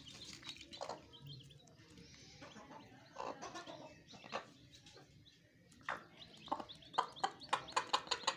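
A brooding hen clucking now and then among her newly hatched chicks, which peep in short calls. The peeping gets busier over the last couple of seconds.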